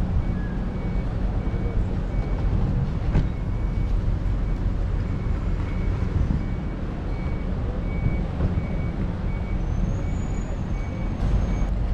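A vehicle's reversing alarm beeps evenly, about one and a half beeps a second, over a steady low rumble.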